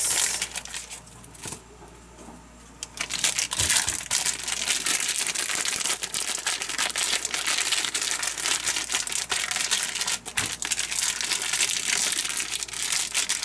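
Plastic zip-top bag crinkling and rustling as hands knead raw chicken breast and olive oil inside it. The crinkling is quieter about one to three seconds in, then dense and continuous.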